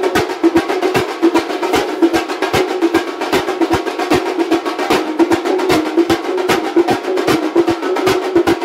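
Thambolam percussion ensemble drumming fast and dense. Large stick-beaten drums and smaller drums play together with metal hand cymbals, many strokes a second over a steady drum tone.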